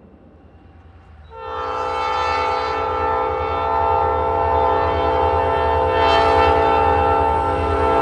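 Norfolk Southern diesel locomotive's multi-chime air horn sounding for a road grade crossing. A long chord starts about a second and a half in and grows slowly louder as the train approaches, over a low rumble.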